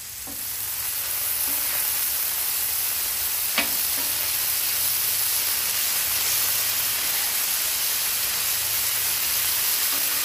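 Ground beef sizzling on a hot steel flat-top griddle as a metal spatula breaks it up and spreads it across the surface. The sizzle builds over the first second or two, then holds steady, with one sharp tap about three and a half seconds in.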